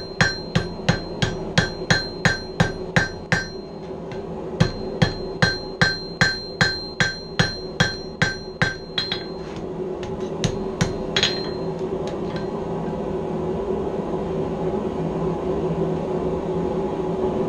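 Blacksmith's hand hammer striking red-hot steel on an anvil, about three blows a second, each with a bright ring from the anvil. The blows come in two runs with a short break about three and a half seconds in. After a lone last blow about eleven seconds in, the hammering stops and a steady hum remains.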